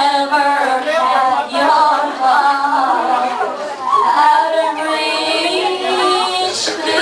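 Women singing together into microphones, with long held notes in the second half.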